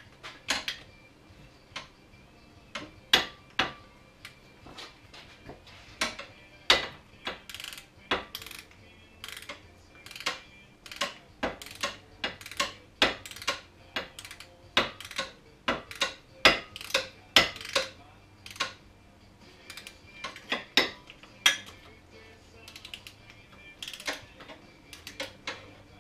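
Socket ratchet on an extension clicking in short, irregular runs as the nuts holding a snowmobile's exhaust Y-pipe are run down onto their studs.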